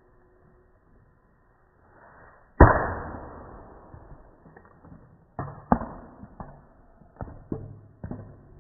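A coconut thrown down onto brick paving and cracking open: one heavy crack with a long fading tail about two and a half seconds in, then several smaller knocks as the broken shell and husk pieces bounce and scatter. The sound is slowed down along with the slow-motion picture, so it comes out deep and drawn out.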